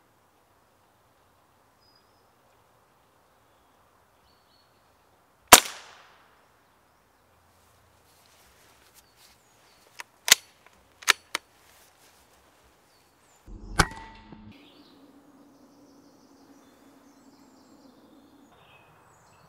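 A single shot from a Walther RM8 pre-charged air rifle, one sharp report about five and a half seconds in with a short ringing tail. A few sharp metallic clicks follow about four seconds later as the rifle's action is worked, then another click with a brief ring and a dull thump.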